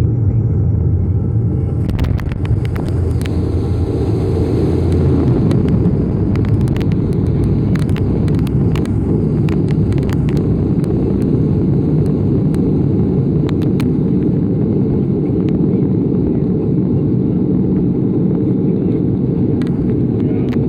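Cabin noise of a Bombardier Dash 8 Q400 turboprop on landing: a loud, steady drone of the engines and propellers with a heavy rumble. A low hum eases off about five seconds in, and a run of knocks and rattles comes in the first half.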